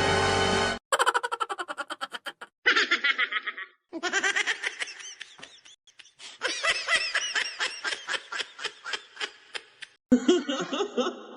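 A string of short stock laughter sound effects played one after another: bouts of fast, repeated ha-ha laughing and giggling, each clip cut off by a brief silence before the next.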